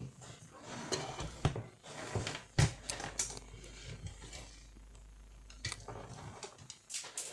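Canon iR2016/iR2018 copier fuser unit being handled and its parts fitted by hand: a string of clicks and knocks with rustling between them, the sharpest knock about two and a half seconds in.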